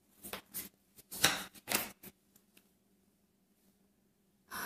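Tarot cards being shuffled by hand: a few short rustling strokes in the first two seconds, then quiet, then a brief sound near the end.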